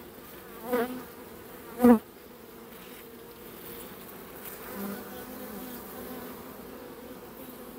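Honey bees humming steadily around an open hive. About one and two seconds in, two brief, louder buzzes swell and fade as bees fly close past the microphone.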